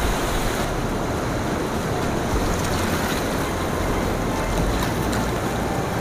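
Heavy rain pouring down in a steady, even hiss, with low buffeting of wind on the microphone.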